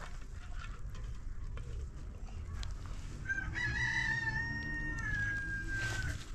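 A rooster crows once about halfway through: one long, held call that drops slightly in pitch as it ends. A few faint knocks come before it, from concrete blocks and stones being handled.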